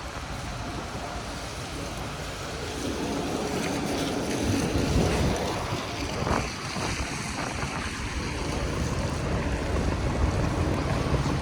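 Wind rushing over the microphone and a steady wet hiss of tyres on a rain-soaked street while riding an electric unicycle in the rain, slowly growing louder. A low steady hum comes in near the end.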